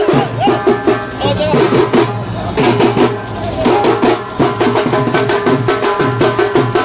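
Loud music with a fast, driving drum beat under a wavering melody line.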